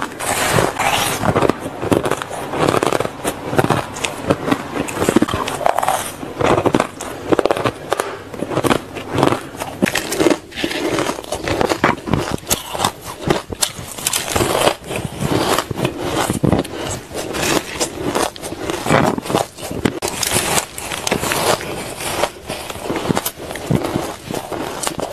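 Ice being bitten and crunched between teeth, first shaved ice and then solid frozen ice chunks: a dense, uneven run of crisp cracks and crunches.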